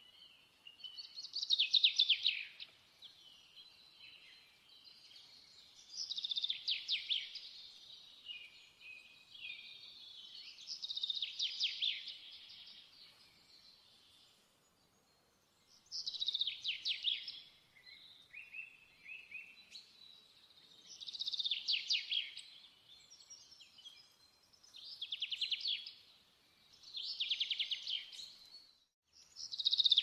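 Canary singing: short, high trilled phrases a second or two long, repeated every few seconds, coming closer together near the end.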